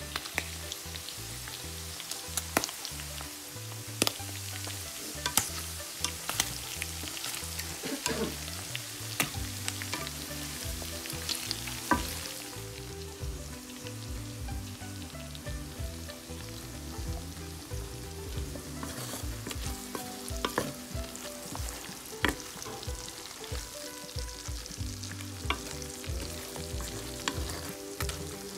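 Squid pieces and garlic frying in melted butter in a pan: a steady sizzle full of sharp crackling pops, with a utensil stirring through the pieces.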